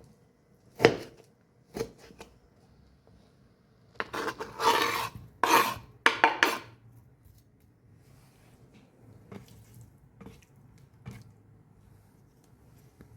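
Kitchen utensils against dishes: a sharp knock about a second in and a lighter one soon after, then about two and a half seconds of clattering and scraping, and a few light taps near the end.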